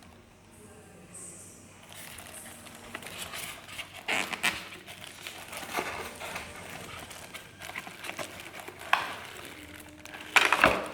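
Plastic packaging crinkling as a new mini slow juicer and its parts are unpacked and handled, with scattered knocks and a louder clatter near the end.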